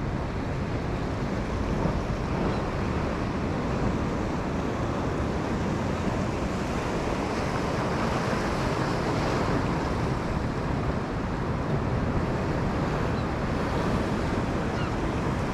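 Steady wash of sea surf on a rocky shore, mixed with wind buffeting the microphone.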